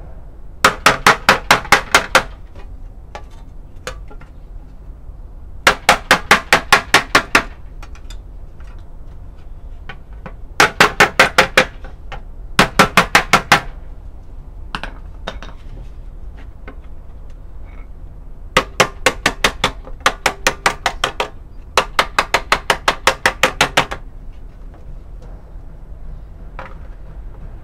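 Hammer beating a sheet of tin-can steel flat on a wooden anvil: seven quick runs of ringing blows, about six a second, each run lasting one to two seconds, with a few single taps in the pauses.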